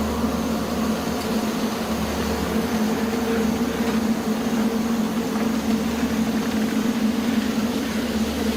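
A steady, dark ambient drone: a low hum with a deep rumble underneath that swells and fades every couple of seconds.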